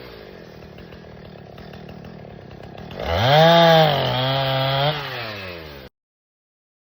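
An engine running at idle, revved up sharply about three seconds in, held high, then let back down before the sound cuts off abruptly.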